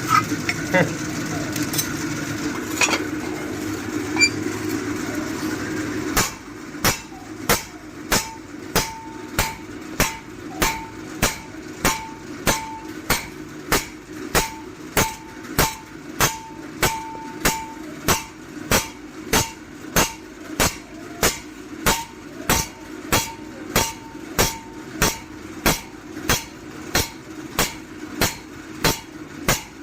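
Hand hammer striking a steel forage-machine blade, even blows about two a second, many leaving a short metallic ring. The hammering starts about six seconds in; before it, a steady machine hum.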